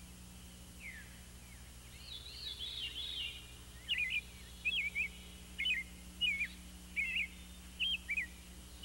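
Small songbird calling: a brief twittering phrase, then a run of short, sharp chirps repeated about every two-thirds of a second, over a steady low hum.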